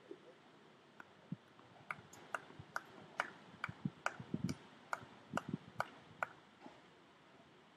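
Scattered clapping from a few spectators: irregular sharp claps, about three a second, starting about two seconds in and dying away near the end, with a few duller thumps among them.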